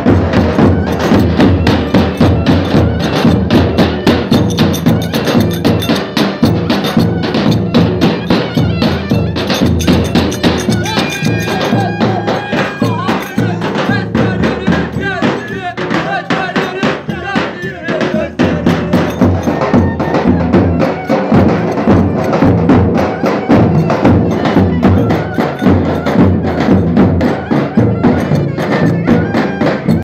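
Several davul, large double-headed Turkish bass drums, beaten together in a fast, steady rhythm for dancing.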